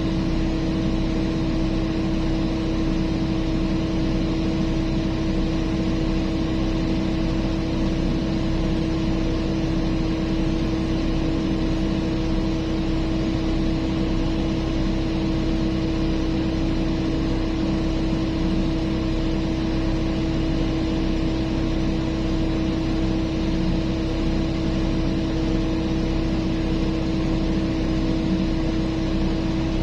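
Heavy mining machinery's diesel engine running steadily with an unchanging hum and rumble.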